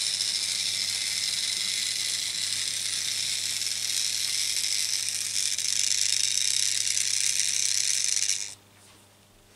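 Vintage Märklin H0 steam locomotive and its coaches running on metal M-track: a steady, loud hissing rattle of motor and wheels over a low hum. It grows louder as the train comes near, then cuts off suddenly near the end as the train stops.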